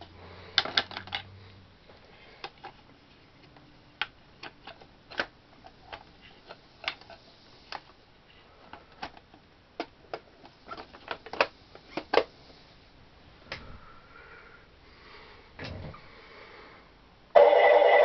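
Scattered light clicks and knocks of the body panels and cab being fitted onto an RC track loader model. Near the end a loud, steady sound cuts in suddenly: the Servonaut SMT sound module starting its engine sound through the newly fitted small speaker.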